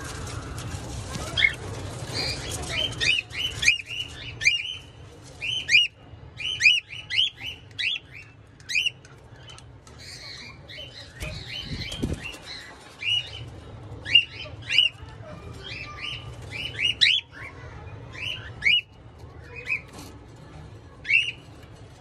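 Twenty-day-old cockatiel chicks giving short chirping begging calls while being hand-fed from a syringe, each call a quick bending note, repeated irregularly and often in quick runs of two or three.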